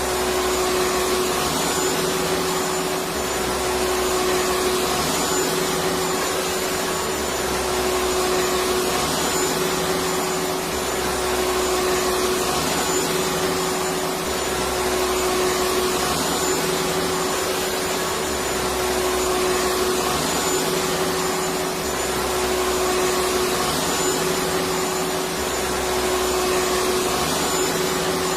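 Electric vacuum cleaner motor running steadily, a dense whooshing noise with a constant hum under it, swelling and easing slightly every few seconds.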